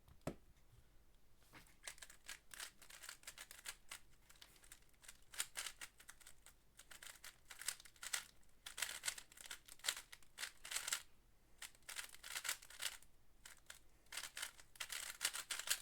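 GAN 12 Maglev UV speedcube being turned fast during a timed solve: a long, uneven run of rapid clacking and rattling layer turns, with a louder knock right at the end.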